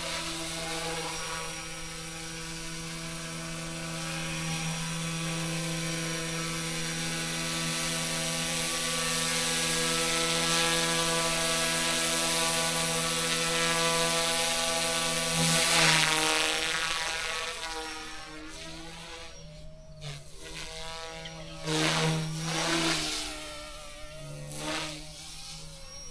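Eachine E120S small RC helicopter in flight: a steady, pitched buzz from its rotors and motor that slowly grows louder for about sixteen seconds. After that the buzz drops and swings, with short surges and dips as the helicopter is manoeuvred.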